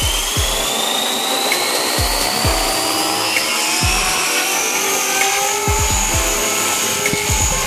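JR Forza 450 electric RC helicopter flying in a hover and pirouetting: a high motor and rotor whine that climbs slowly in pitch, with irregular low thumps underneath.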